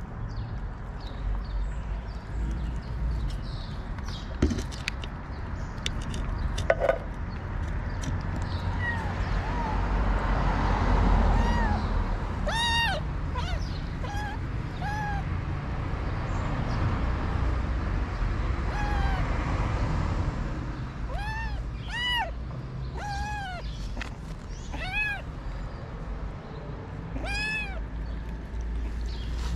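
Kitten meowing over and over in short, high mews, each rising and falling in pitch. The mews come in clusters, starting about a third of the way in. Before they start there are a few sharp clicks, and a steady low rumble runs underneath.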